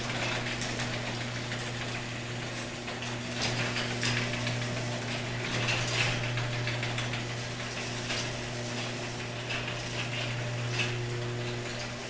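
Access Master 1/2 hp garage door opener running steadily as it lowers a sectional garage door. There is a constant motor hum under a dense rattle of the door travelling down its tracks.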